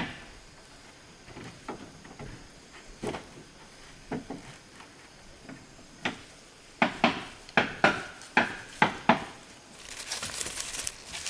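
A series of sharp knocks and clatters, scattered at first, then a quick run of about seven, followed by a short burst of rustling near the end.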